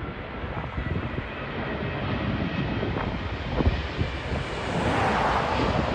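Airbus A350's Rolls-Royce Trent XWB turbofan engines running as the airliner passes low on landing approach, the jet noise steadily growing louder toward the end. Wind buffets the microphone.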